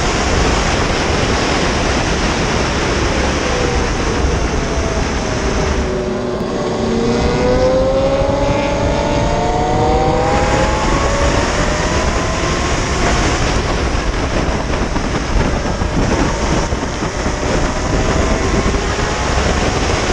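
Heavy wind rush over a motorcycle-mounted camera at racing speed on track. About six seconds in, a pitched whine dips and then slides up in pitch for a few seconds as the bike speeds up.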